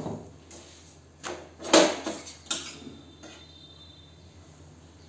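A wooden rolling pin knocked down on a stone counter at the start, then several knocks and clatters of kitchen utensils, the loudest a little under two seconds in.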